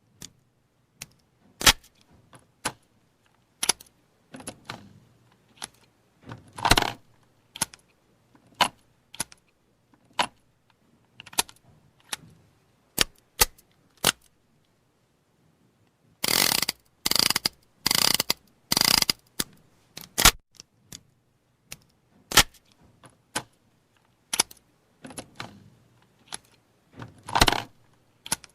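.38 revolver being reloaded and cocked: a long series of sharp metallic clicks and clacks with pauses between them. About halfway through comes a denser stretch of rattling metal-on-metal.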